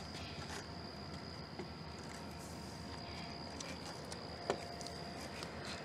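Steady high-pitched insect trill, typical of crickets, over outdoor background hiss, with faint handling rustle and a single knock about four and a half seconds in.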